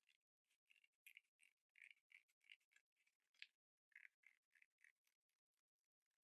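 Very faint snipping of scissors cutting through a folded sheet of stiff buckram: a run of short cuts, about three a second, with a brief pause a little past the middle.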